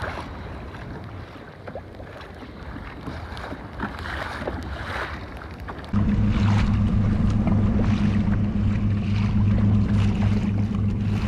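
Water lapping and wind on the microphone from a kayak on open ocean, with scattered small knocks. About six seconds in a steady low motor hum starts abruptly and becomes the loudest sound as the kayak moves along with water rushing past the hull.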